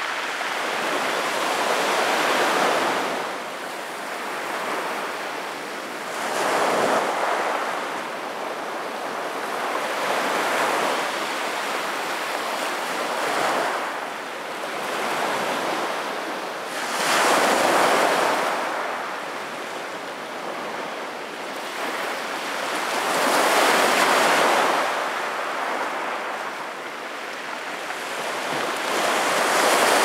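Small sea waves breaking and washing over a pebble beach, the rush of water swelling and fading in slow surges every few seconds, the strongest near the end.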